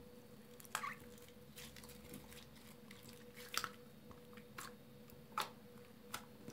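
Homemade slime of toothpaste and petroleum jelly being stretched, then pressed and kneaded flat by hand, giving scattered wet squelches and pops, the loudest about three and a half and five and a half seconds in, over a faint steady hum.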